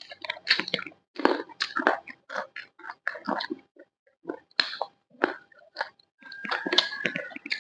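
Close-up chewing and biting of crunchy fried snacks, with many quick, irregular crunches. A thin, steady high tone sounds briefly near the end.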